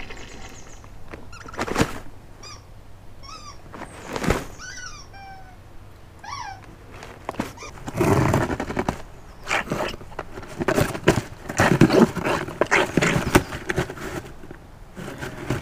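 Arctic fox rummaging in a cardboard box of shredded paper. Cardboard scrapes and paper rustles come in loud, uneven bursts through the second half, after two sharp knocks against the box in the first few seconds.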